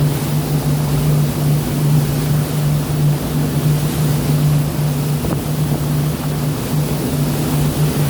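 A steady motor hum, as from a boat's engine, over the rushing noise of the sea.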